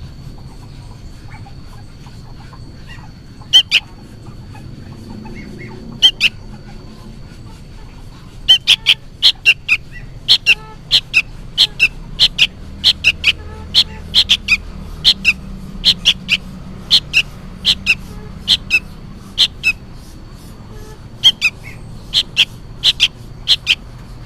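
Juvenile sooty-headed bulbul giving short, sharp calls, often in pairs. They are sparse at first, then come about every half second from about eight seconds in. The uploader takes this noisy calling for the young bird calling its parent.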